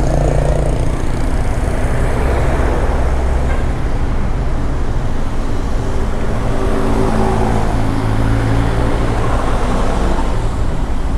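Mountain bus on the move: its diesel engine runs steadily under a constant rush of road and wind noise.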